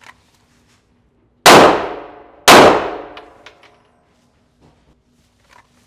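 Two Glock pistol shots about a second apart, each followed by a long echoing decay off the walls of an indoor range. A few faint light clinks follow the second shot.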